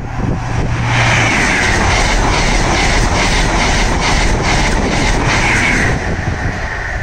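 LNER express passenger train passing at speed: a loud rush of wheel and air noise with a fast, rhythmic clatter of wheels over the rails. It eases off about six seconds in as the train clears.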